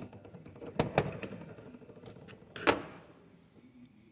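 Small plastic and brass reduction gears from a coolant flow control valve's electric actuator being pulled out and handled: a few sharp clicks, two close together about a second in, lighter ticks after, and a louder click shortly before three seconds.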